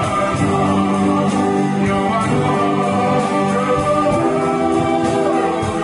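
Live amateur church band playing an instrumental passage of a hymn: electric guitar over a drum kit with cymbals.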